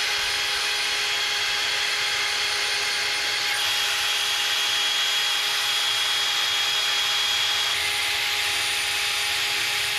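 Wire wheel on a power tool scrubbing the wheel hub's metal mounting surface clean. A steady scratchy hiss, with a constant motor whine.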